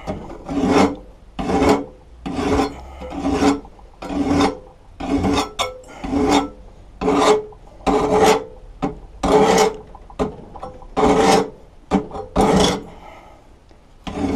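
Half-round metal file rasping along a steel lawn mower blade clamped in a vise, in steady back-and-forth strokes about one every three-quarters of a second, each with a slight ring; the nicked cutting edge is being sharpened by hand. The strokes pause briefly near the end.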